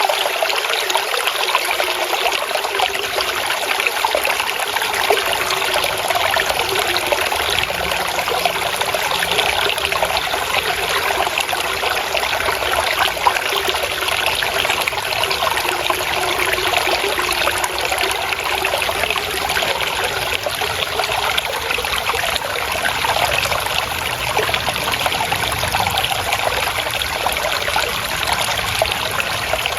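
Flowing water trickling and babbling steadily, a dense, even splashing without pause.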